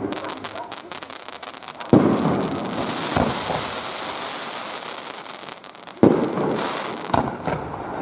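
Aerial fireworks: shells bursting with loud bangs, the two strongest about two and six seconds in, with rapid crackling and hissing between them.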